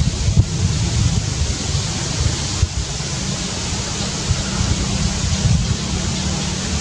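Wind buffeting the microphone: a steady low rumble with an even hiss over it.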